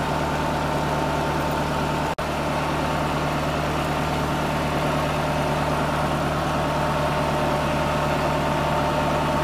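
Tubewell pump running steadily with a constant low engine-like hum, under the rush of water pouring into and spilling from its concrete tank. The sound drops out for an instant about two seconds in.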